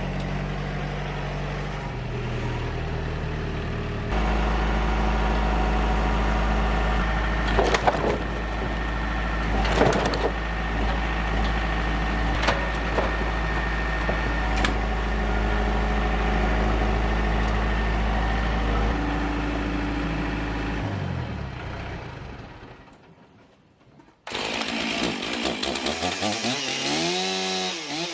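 An engine-driven machine runs steadily, getting louder about four seconds in, with a few sharp knocks, then dies away. A couple of seconds later a chainsaw starts running, its engine note rising and falling as it is revved.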